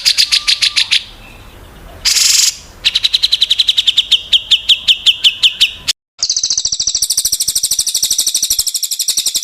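Small songbirds singing fast trills of rapidly repeated high notes, with a short harsh buzzy note about two seconds in. It is an edited birdsong compilation: the sound drops out abruptly around six seconds and a higher, denser trill from another bird starts.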